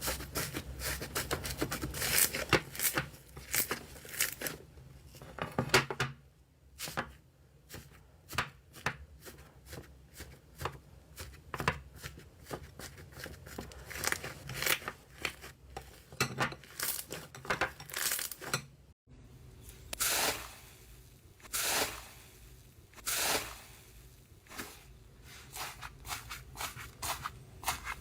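Slime being squeezed, poked and stretched by hand, giving runs of small crackling clicks and pops, dense at first and then coming in separate squelchy bursts every second or so.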